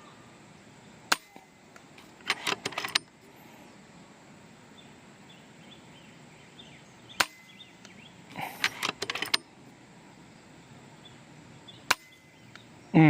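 FX Impact M4 PCP air rifle fired three times, about five seconds apart, each shot a single sharp crack. About a second after each of the first two shots comes a short run of clicks from the rifle's action.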